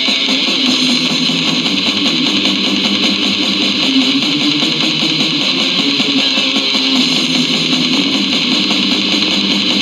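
Metal band recording playing continuously: dense distorted electric guitars, loud and unbroken.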